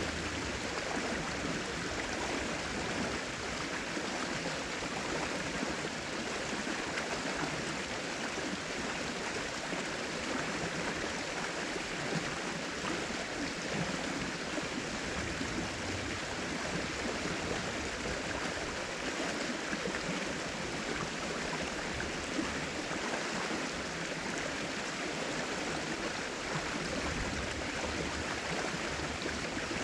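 River water rushing and flowing steadily, an even hiss with no breaks.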